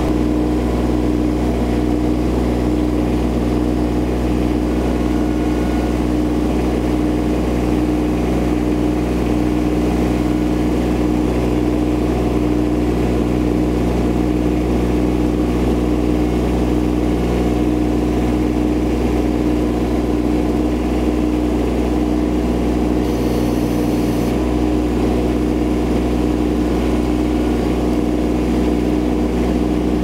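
Baumalight TRL620D mini tracked skid steer's engine running steadily at a constant speed while the machine carries a load of crates on its pallet forks.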